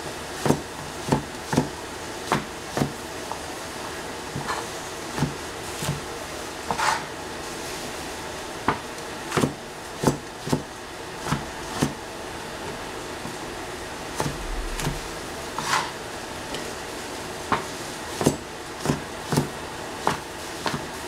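A cleaver chopping squash on a plastic cutting board: sharp, irregular knocks of the blade striking the board, a few strokes at a time with short pauses between.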